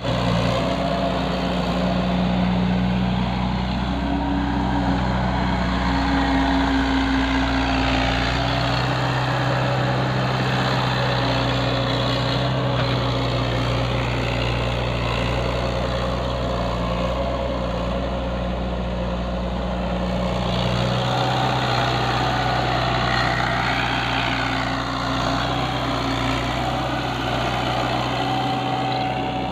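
Mini excavator engine running steadily, its pitch shifting up and down several times as the machine works.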